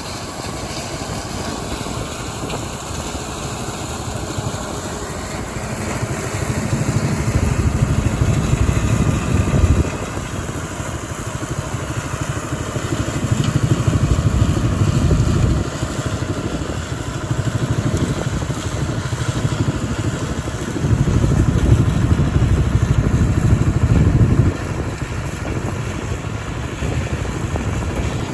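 Combine harvester running while harvesting soybeans: a steady machine drone, with a deeper low rumble that swells up three times for a few seconds each.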